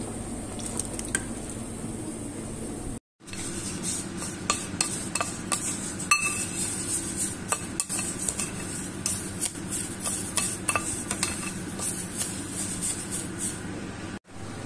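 Wooden spoon stirring couscous grains moistened with liquid in a bowl, with many small irregular clicks and scrapes against the bowl, over a steady low kitchen hum. The sound cuts out briefly about three seconds in, and the stirring clicks come after that.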